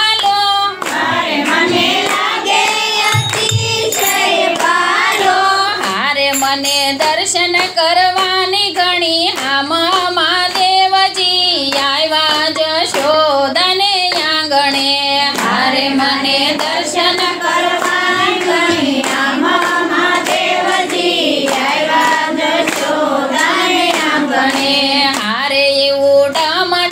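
A Gujarati devotional kirtan (bhajan) sung by high women's voices in unison, over a steady beat of hand claps.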